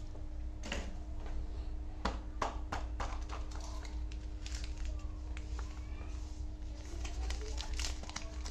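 Light knocks and taps of snack packages being set down and handled on a cloth-covered table, then a run of crinkling clicks from a plastic chocolate-bar wrapper being handled near the end, over a steady low hum.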